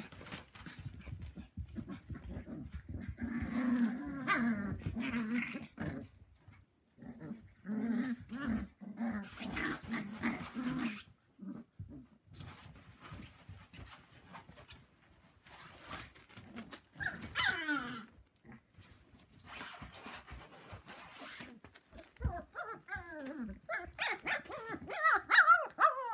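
Cocker spaniel puppies play-growling in rhythmic runs, with a single yelp midway and a flurry of high-pitched whimpers and yips near the end.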